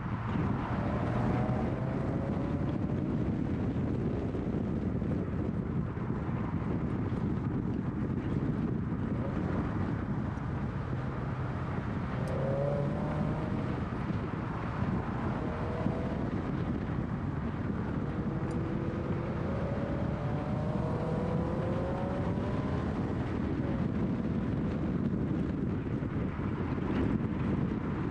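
Scion FR-S with its 2.0-litre flat-four engine driven hard through curves, the engine note rising several times as it accelerates, under steady road and wind noise on an outside-mounted camera.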